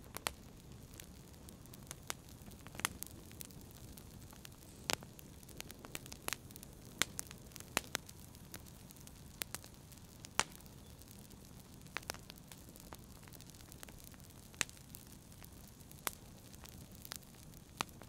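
Wood fire crackling in a fireplace: irregular sharp pops and snaps, about one or two a second, over a low steady rush.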